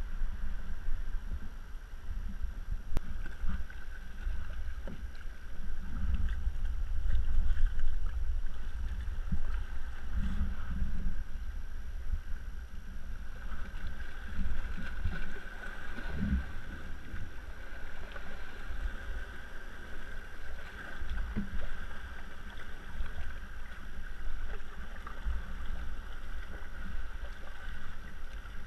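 Sea water lapping and slapping against a kayak's hull as it drifts on a light chop, with wind buffeting the microphone in an uneven low rumble.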